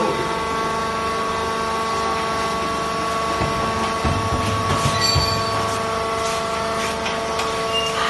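Hydraulic fiber baler's motor and pump running with a steady whine, with a few dull low knocks about halfway through.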